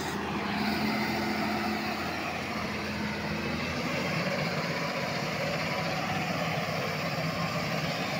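Power Plus PP938T-V wheel loader's diesel engine running steadily as the machine drives across the graded ground, its note dropping slightly about three and a half seconds in.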